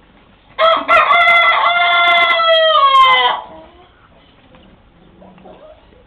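A rooster crowing once, loud: one long crow of about three seconds that falls in pitch at the end and stops abruptly.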